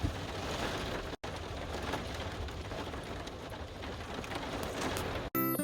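Steady rain falling, an even hiss, broken by a brief cut about a second in.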